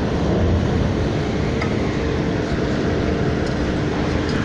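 Steady machinery noise with a faint constant hum under it, and a few faint light ticks.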